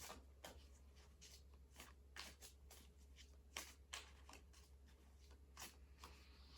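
Tarot cards being shuffled by hand: faint, irregular soft clicks and flicks of cards, over a low steady hum.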